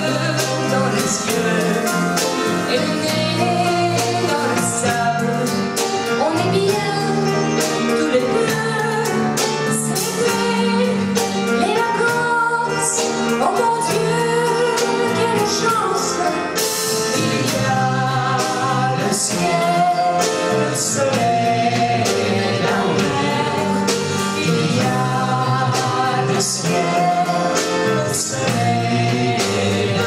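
A female and a male singer performing a duet of a 1960s yé-yé pop song, backed by a small live band of drums, guitar and saxophone.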